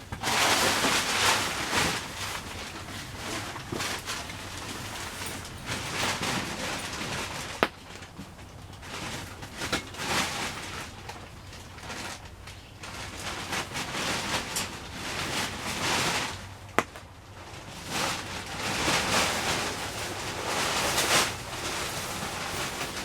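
Plastic tarp rustling and crinkling in repeated bursts as it is handled and pulled, with two sharp clicks, one about a third of the way in and one about two thirds in.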